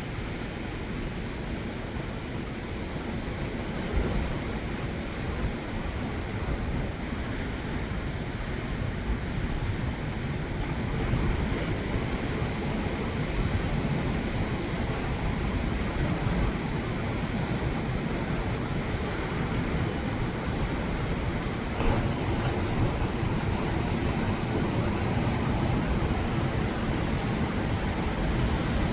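Ocean surf washing steadily, with wind rumbling on the microphone and a couple of brief bumps, about four seconds in and near twenty-two seconds.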